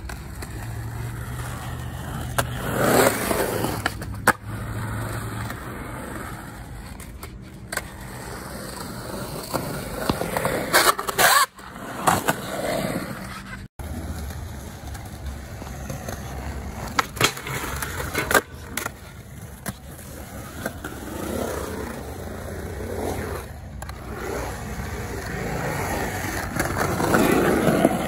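Skateboard wheels rolling over a concrete skatepark surface, swelling as the board picks up speed, with several sharp clacks of the board's deck and wheels slapping down on the concrete.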